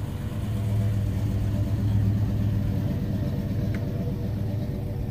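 A car engine idling steadily, with a low, even drone.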